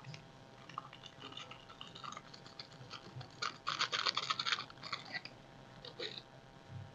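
Crisp crinkling and crunching as powdered shrimp consommé seasoning is crumbled between the fingers over the soup pot. The crunching is densest from about three and a half seconds in for a little over a second, with scattered small crackles before and after.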